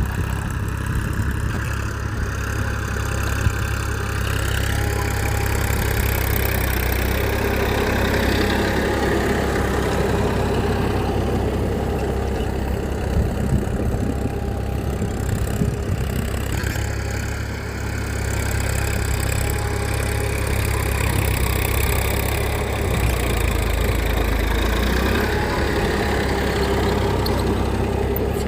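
An engine running steadily at an even speed, with a fast regular low beat.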